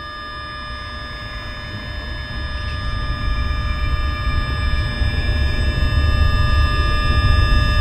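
An ominous film sound-design drone: a low rumble swelling steadily louder under several sustained high ringing tones, ending abruptly at the end.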